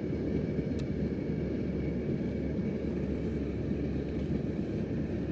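A steady low rumble with no clear pitch, and a faint click just under a second in.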